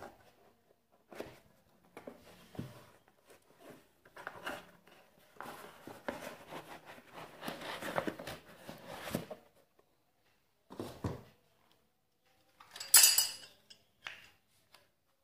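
A cardboard box holding a Stanley set of 12 chrome-vanadium steel double open-end spanners being handled and opened, with scattered knocks and a few seconds of scraping and rustling. Near the end comes the loudest sound, a short bright metallic clatter of the spanners in their plastic holder.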